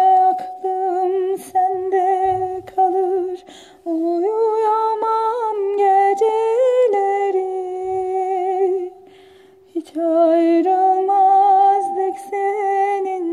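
A woman humming a slow melody unaccompanied, in long phrases with a wavering vibrato on the held notes, breaking off briefly about four and nine and a half seconds in.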